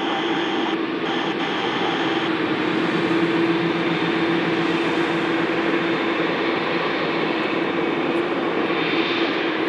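Jet airliner taking off, its engines at takeoff thrust: a steady, loud rush of jet noise with a constant low hum underneath.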